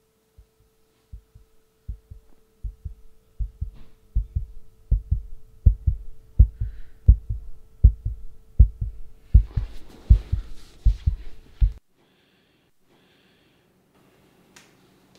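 Heartbeat sound effect: double thumps, faint at first and growing louder, over a steady low drone. A hiss swells in for the last couple of seconds before it all cuts off abruptly.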